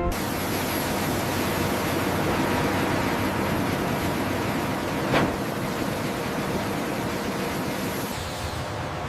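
Steady rushing mechanical noise that starts abruptly, with a faint high whine, and a single sharp knock about five seconds in.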